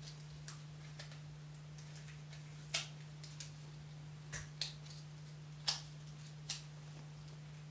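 Short, sharp scratches of a paper match being struck against a matchbook, about eight strokes at uneven intervals, the loudest about a third of the way in and just past halfway, over a steady low hum.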